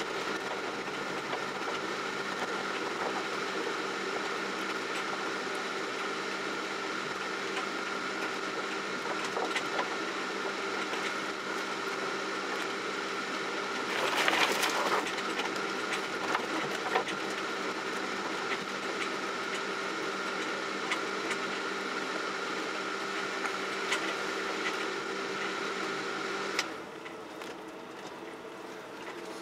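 Off-road vehicle driving slowly over a rough forest dirt track, heard from inside the cab: a steady mechanical drone with a constant whine, plus body rattles and knocks. About halfway through there is a loud burst of scraping as branches brush along the windscreen and bodywork. Near the end the whine cuts off suddenly and the sound gets quieter.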